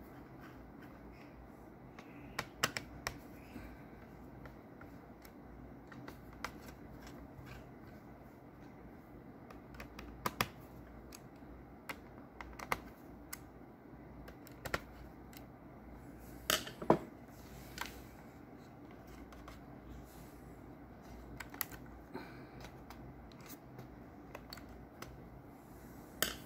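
Screwdriver clicking and scraping on the small metal screws of a laptop's CPU heatsink: scattered sharp ticks at irregular intervals, a few louder ones, over a faint steady low hum.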